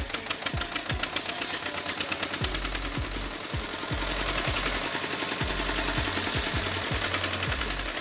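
Tractor diesel engine running with a rapid, even clatter, over deep thumps that drop in pitch about twice a second.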